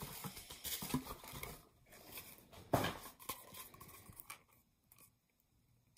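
Hands handling paper and items in a cardboard subscription box: rustling and light knocks, with one louder bump about three seconds in, then quieter.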